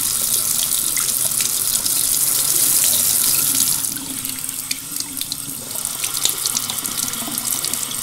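Water running from a tap into a basin in a steady, hissing stream. About four seconds in it turns quieter and thinner, with small splashes standing out.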